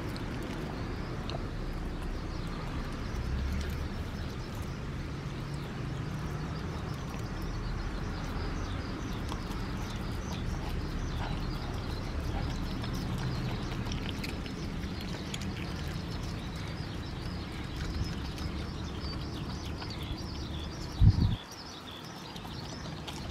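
San'in Shiba dog chewing raw venison, with many small crunching clicks of teeth on meat over a low steady rumble. There is one loud thump near the end.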